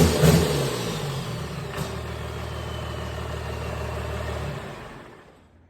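Freshly installed 12-valve Cummins 5.9-litre inline-six turbo diesel running just after its first start. It is loud and uneven at first, then settles to a steady idle, and the sound dies away about a second before the end.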